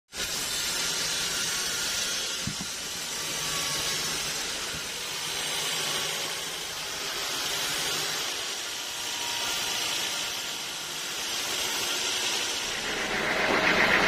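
Sawmill band saw running: a steady hissing whir that swells and fades slowly every couple of seconds and grows louder near the end.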